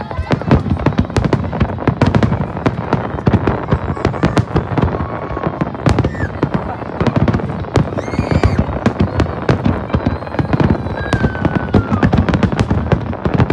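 Fireworks display in full barrage: a dense run of rapid overlapping bangs and crackles with no break, with a few short whistles among them.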